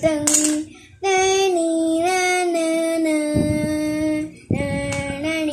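A child's voice singing long, held notes, mostly on one pitch, with a sharp click about a quarter of a second in.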